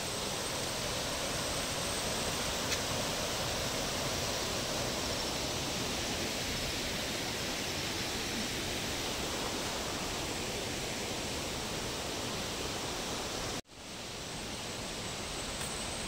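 Steady rush of water tumbling over the rocks of a boulder-strewn forest stream. Near the end it cuts out for an instant and fades back in.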